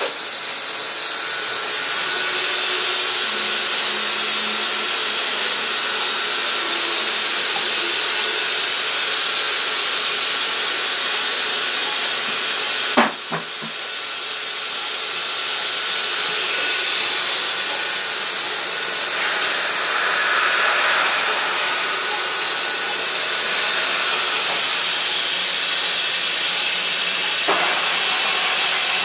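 Steady hiss from a Bridgeport Torq-Cut TC4G CNC vertical machining centre while its axes home after start-up, with a single sharp click about 13 seconds in.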